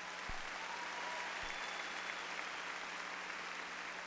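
A large audience applauding, a steady clapping that holds throughout.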